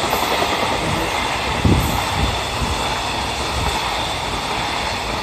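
A container freight train's wagons rolling past at speed: a steady loud rush and rumble of wheels on rail, with a sharper low knock about a second and a half in.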